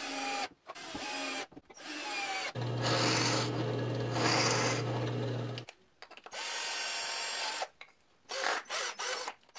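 Cordless drill driving screws into plywood in several short spurts, then a drill press running with a steady low motor hum as its bit bores a pilot hole into the edge of a plywood strip, followed by more bursts of drilling noise.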